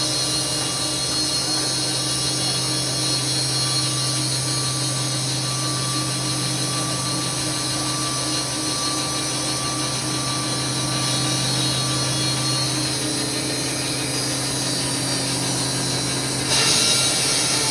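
Wood-Mizer WM2500 industrial band sawmill running and sawing a log: a steady mechanical hum with a high hiss. About a second before the end it gets louder, with a stronger hiss.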